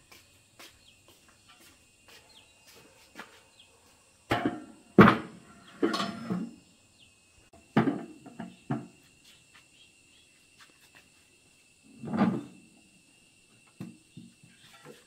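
Scattered knocks and clunks, about six in all, the loudest about five seconds in, as of hard objects being handled and set down. A faint steady high tone runs underneath.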